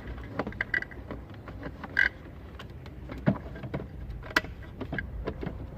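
Plastic wiring connectors being handled and pushed into a car stereo's harness, giving scattered clicks and knocks, the sharpest about two seconds in and again just after four seconds, over a steady low hum.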